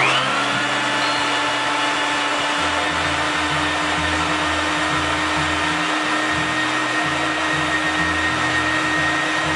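Electric food processor switched on and running steadily, its motor spinning up at once to a continuous whine, as it purées roasted yellow bell peppers.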